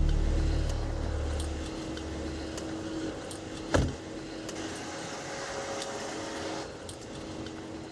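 Low rumble of a stationary patrol car dying away over the first two seconds, then a single sharp thump about four seconds in, over a faint steady hum.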